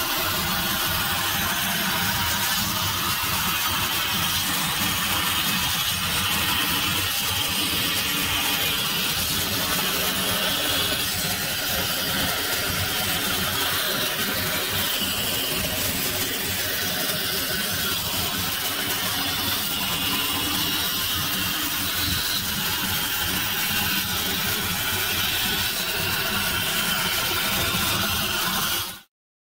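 CNC plasma cutter cutting steel plate and pipe: a loud, steady hiss that keeps on without a break and cuts off abruptly near the end.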